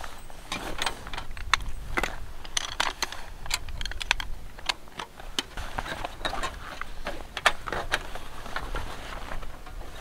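Irregular clicking and rattling of a folding camping table and a folding camp chair being unfolded and assembled, their frame pieces and legs clacking and snapping into place.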